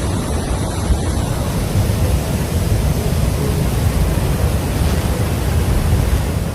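Loud, steady rush of storm noise with a deep, buffeting rumble underneath.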